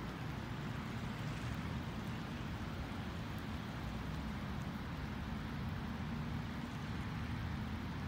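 Steady outdoor background: a low rumble with a faint hiss over it, from wind and distant traffic.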